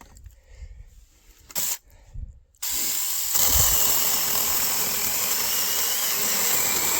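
Cordless 6-inch mini chainsaw's electric motor and chain: a short burst about one and a half seconds in, then the saw starts suddenly about two and a half seconds in and runs steadily at full speed.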